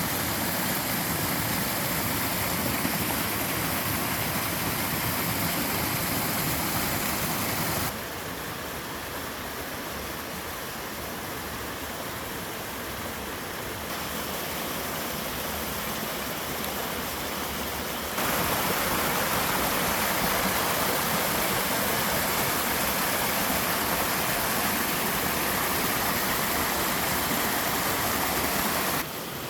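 Mountain stream water rushing over a series of small waterfalls and cascades, a steady dense splashing. Its loudness and tone change abruptly three times, about 8, 14 and 18 seconds in, as if switching between different falls.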